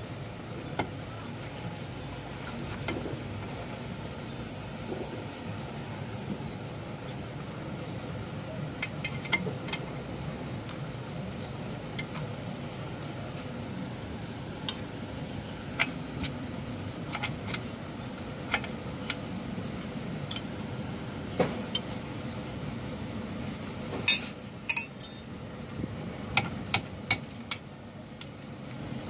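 Scattered metallic clicks and clinks of a combination wrench and caliper hardware being handled on a car's front disc brake, over a steady low background hum. There is a quick run of clinks about three-quarters of the way through, then several sharp ticks near the end.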